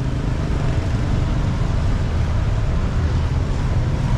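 Street traffic in the rain: a vehicle engine running close by with a steady low hum, over a constant hiss of rain.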